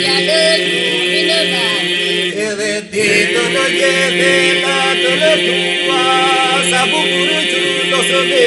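Albanian Labërian polyphonic singing (lapardha): a steady held drone (iso) under wavering, ornamented solo vocal lines, with a brief break in all the voices about three seconds in.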